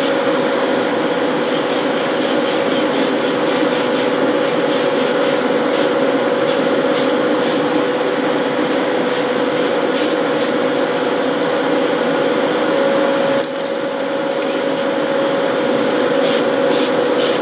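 Aerosol spray paint can hissing in many short bursts, grouped in runs with brief pauses, over the steady running and constant hum of the spray booth's exhaust fan.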